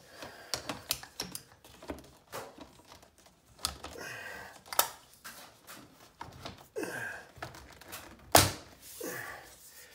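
Scattered light clicks and taps of handling at a window, with one sharp knock about eight seconds in.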